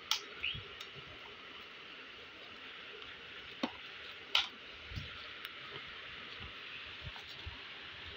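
Scattered sharp clicks and crackles of a clear plastic takeaway food-tray lid being handled and lifted, over a faint steady hiss.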